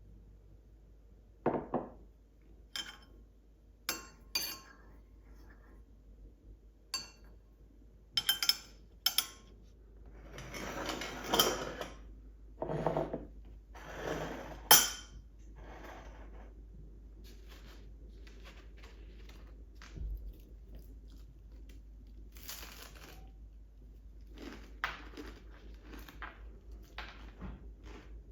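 Dishes, cutlery and glassware handled at a breakfast table: scattered clinks and knocks, with two longer stretches of rubbing noise about ten and thirteen seconds in.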